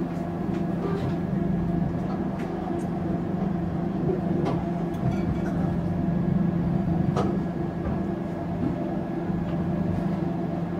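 Tejas Express passenger train arriving at a station: a steady hum and low rumble, with a few faint clicks.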